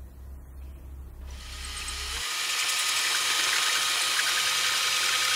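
Electric power drill boring a hole through a window frame, the bit cutting through toward the masonry for a fixing screw. It starts a little over a second in and builds to a steady run.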